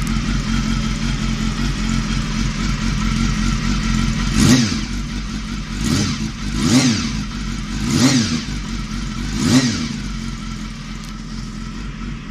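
Honda Hornet 250's inline-four engine idling through an aftermarket Akrapovič-style replica muffler, then blipped five times from about four and a half seconds in, each rev rising and falling back to idle.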